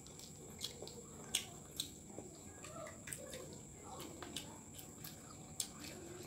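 Close-up eating sounds: chewing and wet lip smacks, heard as an irregular scatter of sharp clicks, the loudest about a second and a half in. A faint steady high-pitched whine sits underneath.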